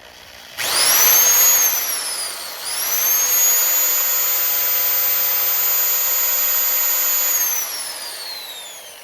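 Electric drill boring into a broken bolt stuck in a circular saw, to drill it out. Its whine rises as it spins up about half a second in, sags and falls briefly, rises again and runs steady for several seconds, then winds down with a falling whine near the end.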